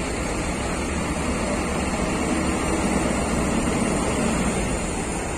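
Steady running of bus engines, a low rumble that swells a little in the middle.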